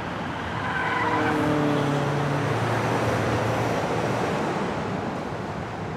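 Road traffic: a car passing by close, its engine note sliding down in pitch about a second in, over a steady rush of tyre and traffic noise.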